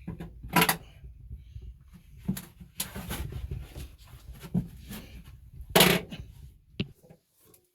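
A person clambering into the wreckage of a crashed small plane: a series of scuffs and scrapes, the loudest about half a second in and just before six seconds in, over a low rumble that fades near the end.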